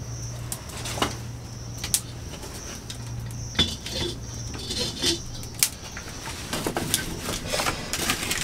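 Scattered sharp knocks and clinks of a black iron wok being set down on the iron grate of a wood-fired mud stove and of firewood being handled.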